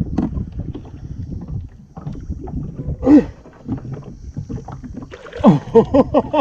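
Irregular knocking, bumping and rubbing on a fishing kayak's hull and gear as a big blue catfish is handled aboard. There is a short falling pitched sound about three seconds in, and a quick run of short pitched sounds near the end.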